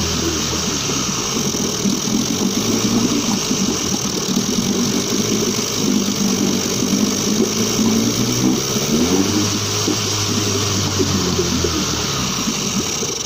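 1977 Suzuki DT9.9 two-cylinder two-stroke outboard motor running steadily on freshly replaced fuel lines, its speed shifting a little, then dying away right at the end.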